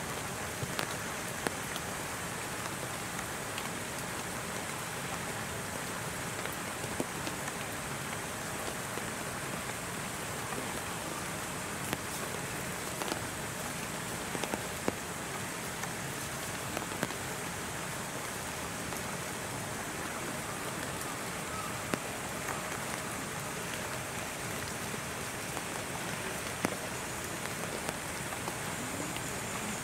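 Steady rain falling, with scattered louder drops tapping close by.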